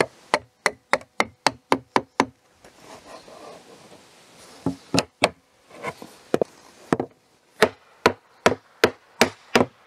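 Hammer knocking the last board of a traditional Korean woomul-maru floor panel into the grooves of its wooden frame. The sharp knocks come in runs: about eight quick ones in the first two seconds, a pause, then more groups as the board is driven home.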